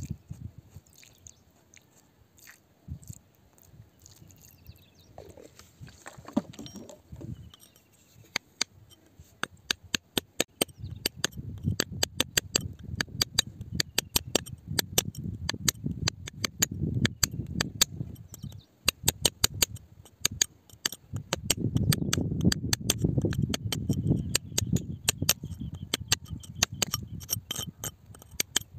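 A pointed metal bar picking and scraping at wet, muddy rock around an embedded stone: rapid sharp clicks and taps with wet squelching. It is quiet for the first several seconds, then the picking grows dense and louder, with the heaviest bouts in the middle and later part.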